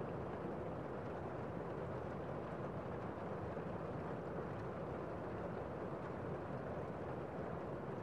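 Heavy rain heard from inside a room: a steady, muffled rush, with little of the high hiss of the drops.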